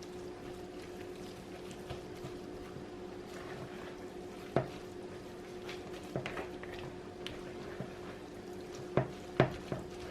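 A spoon or spatula stirring a thick crab, cheese and spinach mixture in a bowl, with a few sharp clinks against the bowl, the loudest two near the end. A steady low hum runs underneath.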